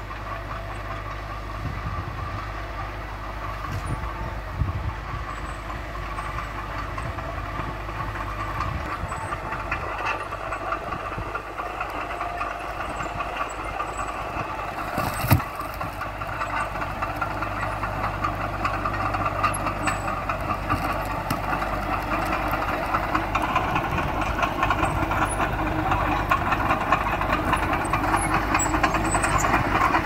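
Small crawler bulldozer's diesel engine running under load while it pushes dirt and rubble, with the clatter of its steel tracks. It grows louder as the dozer comes closer, with a single sharp knock about halfway through.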